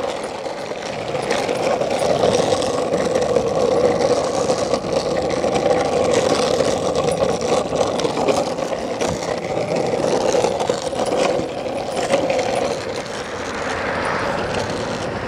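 Small hard wheels rolling fast over an asphalt path: a steady rumbling hiss that eases a little near the end.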